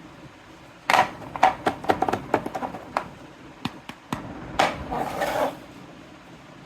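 Small toy kitchen pieces being handled: a quick, irregular run of light clicks and clatters, then a short scraping rustle, before it goes quiet about a second before the end.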